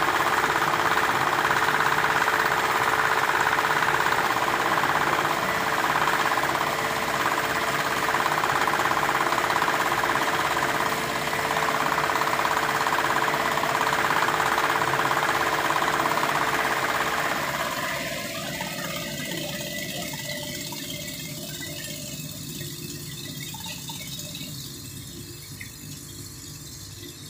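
A motor-driven machine running steadily with a dense rushing of water over it; about eighteen seconds in the rushing drops away and the sound fades gradually.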